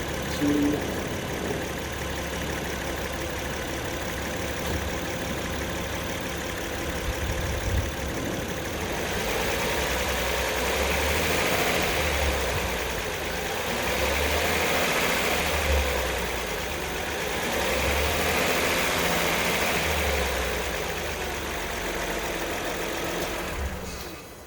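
2017 Acura RDX's 3.5-litre V6 running, its speed raised and let fall about three times in the second half to circulate fresh oil after an oil change. The engine is shut off near the end.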